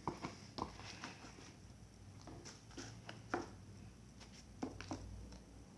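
Scattered light clicks and taps of containers being handled on a tabletop, several short knocks spread about half a second to a second apart.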